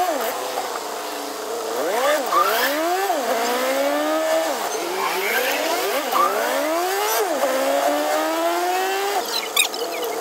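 Passenger jeepney's engine accelerating, its pitch climbing and then dropping sharply again and again as the driver shifts gears, with a long slower climb in the second half. A couple of sharp clicks come near the end.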